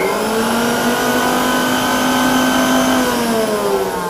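Preethi Zodiac mixer grinder's food-processor motor running at speed with the slicing disc fitted while cucumber is pushed down the feed tube: a loud, steady whine with several tones. About three seconds in, its pitch starts to fall as the motor slows.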